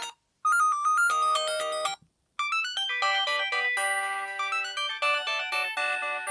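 Samsung SGH-P910 mobile phone playing polyphonic .mmf ringtones from an LG C1100 through its speaker, in a Yamaha-style synth sound. One ringtone cuts off just after the start. After a brief silence a short tune of about a second and a half plays, and after another short gap the next ringtone begins and carries on.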